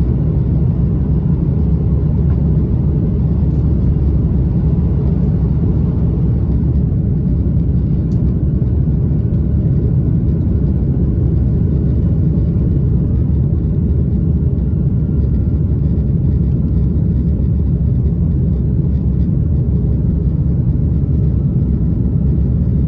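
Steady low vehicle rumble, heard from inside, unchanging throughout.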